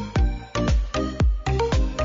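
Electronic dance background music with a heavy, fast kick-drum beat, about four beats a second, over sustained synth tones.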